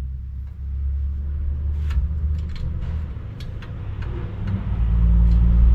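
Low, steady rumble of a running vehicle engine that grows louder near the end, with a few light metallic clicks from a wrench being tried on brake line fittings.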